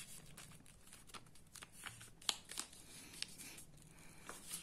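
A sheet of paper being folded and creased by hand on a wooden tabletop: faint rustling with scattered crisp crackles, a few sharper ones about two and a half seconds in.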